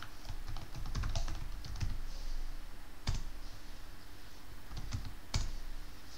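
Typing on a computer keyboard: a quick run of keystrokes, a single harder key press about three seconds in, then a few more keys and a second harder press near the end. The harder presses are the Enter key submitting a terminal command and then a password.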